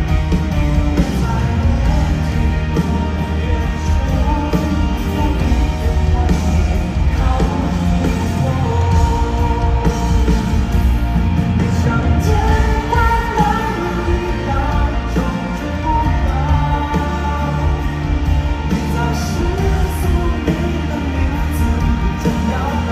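Live concert music heard from the audience: a band plays with a heavy, steady bass beat through the arena PA, with a singing voice carried over it.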